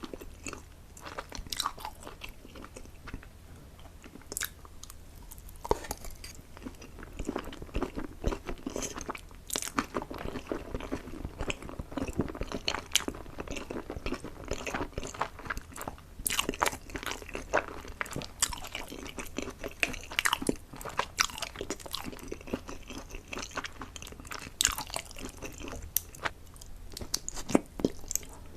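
A person chewing and biting food close to the microphone, with a steady run of irregular wet mouth clicks and smacks.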